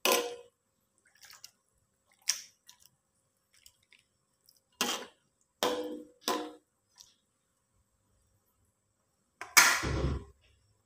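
Metal spatula clinking and scraping against a wok while a coconut-milk curry of long beans and fish is stirred gently, in separate strokes a second or two apart, with a heavier knock near the end.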